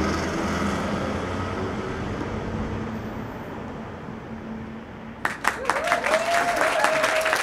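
The tail of a rock intro tune fading away, then studio audience applause breaking out suddenly about five seconds in, with a long rising whoop over the clapping.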